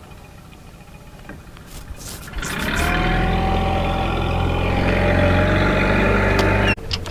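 Boat's outboard motor throttling up, its pitch rising and then holding steady at speed, before cutting off abruptly near the end.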